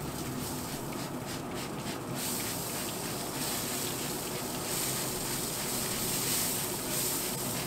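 Hand trigger spray bottle spritzing a water and apple cider vinegar mix onto ribs in a hot pellet grill. At first it is a run of short sprays; from about two seconds in it becomes a longer, high hiss that swells in several pulses. A steady low hum runs underneath.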